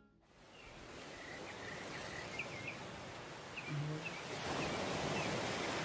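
Ocean surf washing in: a steady rushing wash that fades in and swells louder in the second half, with small birds chirping over it in the first half.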